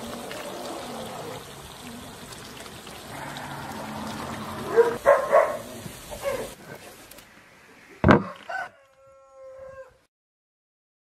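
A rooster crowing among chickens, with pitched calls about five seconds in and a held call near the end. A single sharp knock comes about eight seconds in, and the sound cuts off suddenly about ten seconds in.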